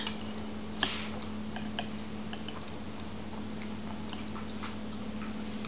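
Metal spoon clinking and scraping against a porcelain cereal bowl: a sharper clink about a second in, then lighter scattered taps, over a steady low hum.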